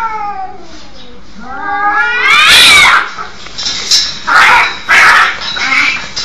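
Domestic cats fighting and caterwauling: a long yowl falls away at the start, a second wail rises and peaks about halfway, and several short harsh cries follow.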